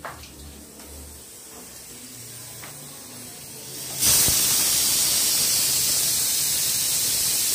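Pressure cooker venting steam: a loud, steady hiss that starts suddenly about four seconds in, after a few faint knocks.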